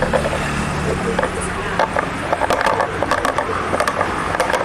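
Irregular light metallic clicks and taps of a hand tool and bolt as a fog-light bracket bolt is screwed in, over a steady background hum of traffic.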